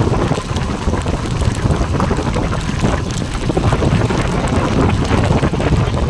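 Wind buffeting a phone's microphone held at an open car window while driving, a loud, steady low rumble that flutters in level, with the car's road noise underneath.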